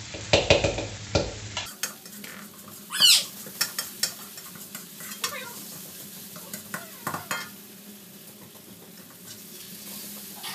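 A spatula scraping and clacking in a wok as flat rice noodles are stir-fried, over a steady sizzle. There is one loud high squeak about three seconds in, and the strokes thin out in the last few seconds.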